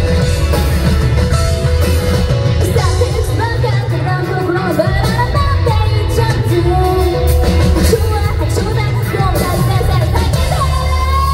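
Live rock band performance: a female lead vocal sings over a full band of bass, drums, guitar and keyboards. The voice comes in a couple of seconds in, and a long high note is held near the end.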